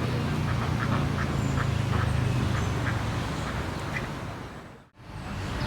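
Ducks quacking in a run of short calls, over a steady low hum of distant traffic. The sound drops out briefly near the end.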